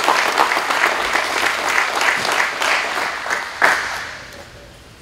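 Audience applauding, with one louder clap about three and a half seconds in, then the applause dies away near the end.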